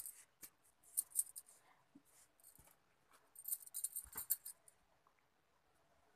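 Handling noise of a phone held over a paper notebook: short bursts of crisp crackling rustle about a second in and again around four seconds in, with faint quiet between.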